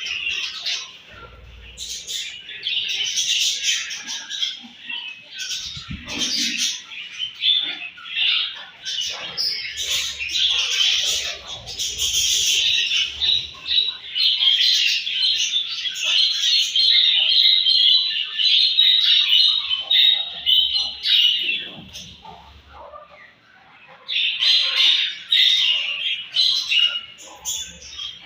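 A flock of budgerigars chattering and chirping continuously, many birds calling over one another, with a brief lull about three quarters of the way through. A few low thumps are mixed in.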